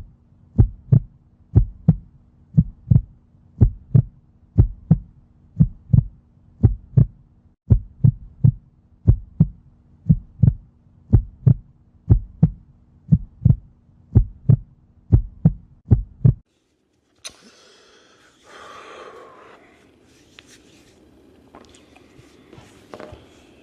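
A heartbeat sound effect: regular low thumps, about two a second, over a steady low hum drone. It cuts off sharply about 16 seconds in, leaving faint room noise.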